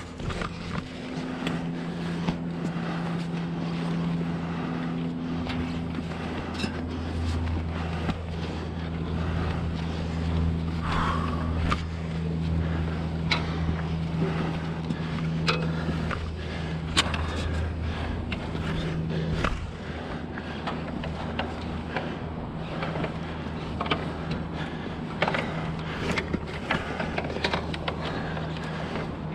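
Steady low drone of the fire truck's engine running below the aerial ladder, easing slightly about two-thirds of the way in, with scattered knocks and clicks of gloved hands and boots on the metal ladder rungs.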